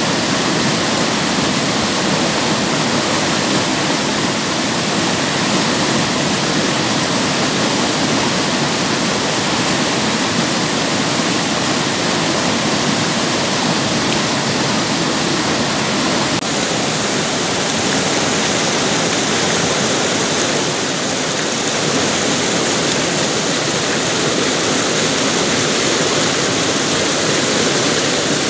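Spring-fed river whitewater rushing and cascading over boulders: a loud, steady rush of water, its tone shifting slightly a little past halfway.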